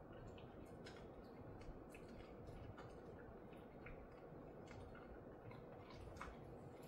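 A dog chewing a hard treat: faint, irregularly spaced clicks of its teeth, a few a second, over a low steady room hum.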